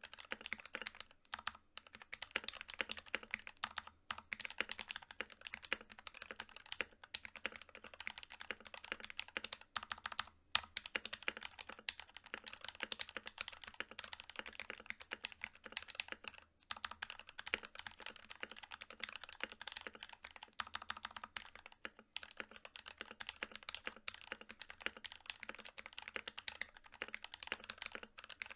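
Fast, continuous typing on an NK65 Milkshake Edition mechanical keyboard, with a polycarbonate case, an aluminium plate, prelubed NK_ Silk Yellow linear switches and PBT Cherry-profile keycaps: a dense stream of keystrokes broken by a few momentary pauses.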